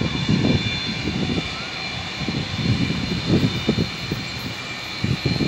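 Antonov An-225 Mriya's six Progress D-18T turbofan engines at taxi power: a steady high jet whine, with uneven low rumbling surging underneath.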